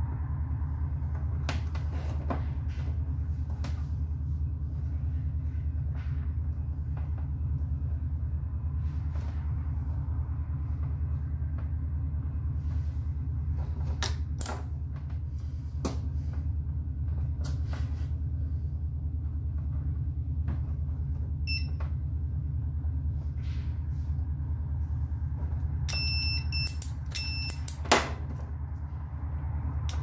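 Steady low hum throughout, with small clicks from handling wires. Near the end a multimeter gives a few short, high beeps as its probes check continuity on the X-ray exposure switch wiring, and there is a sharper click between them.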